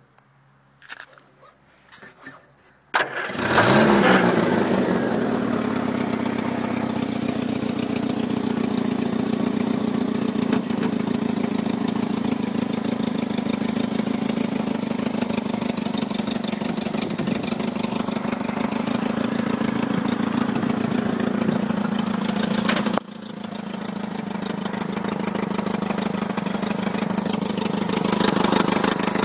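A dumper truck's Mini four-cylinder petrol engine starting about three seconds in, catching at once and settling into a steady idle. About twenty seconds later the sound drops suddenly quieter, then slowly builds back up.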